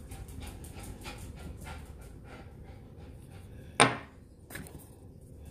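A dog panting quickly, about three breaths a second. A little under four seconds in comes one sharp knock, as a small product box is set down on the table, then a lighter tap.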